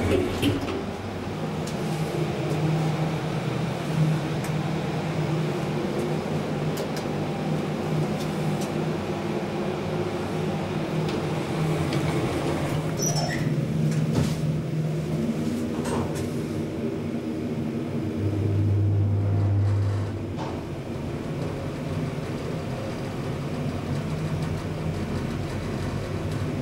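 Schindler hydraulic elevator in travel, heard from inside the car: a steady mechanical hum from the hydraulic drive, with a few faint clicks and a deeper buzz for about two seconds late in the ride.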